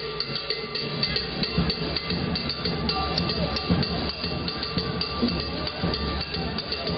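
Live banda music: a brass band of sousaphone and trombones playing over drum kit and congas, with a steady beat.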